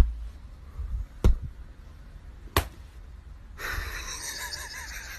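Three sharp taps about a second and a quarter apart over a low rumble. About three and a half seconds in, a steady hiss sets in, with faint voices in it.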